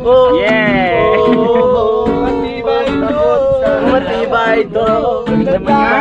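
Voices singing along to a strummed acoustic guitar, with one voice holding a long wavering note about half a second in.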